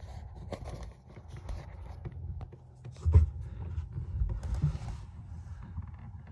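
Scattered knocks and handling noise over a low rumble, with one louder thump about three seconds in.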